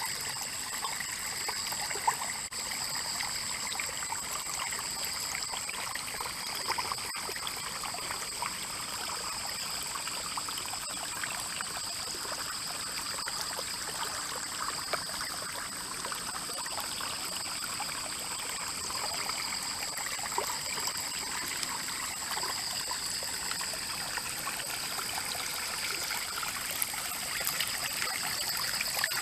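Rain-fed stream flowing and trickling steadily, with a steady high-pitched tone above the water noise.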